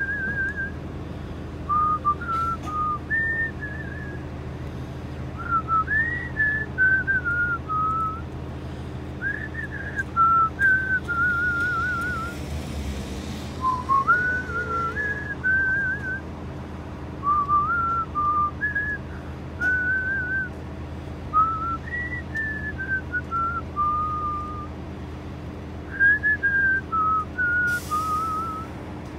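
A person whistling a slow tune, with clear held notes stepping up and down and a few warbled, trilling notes, over a steady low hum.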